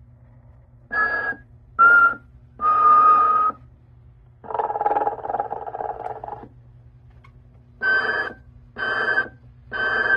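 Snoring Santa novelty figure playing its snore sound over a steady low hum. First come three short snorts with a whistling tone, then a longer pulsing snore about halfway through, then three short whistling snorts about a second apart near the end.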